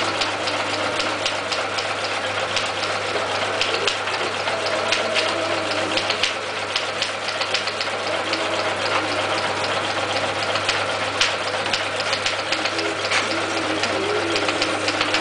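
Long-arm zigzag sail-making sewing machine running steadily as sail cloth is fed through it: a constant motor hum under a rapid clatter of needle strokes.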